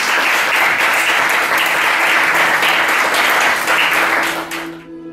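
Small audience applauding, a dense patter of hand claps that stops abruptly near the end. Steady music tones come in just before the applause ends.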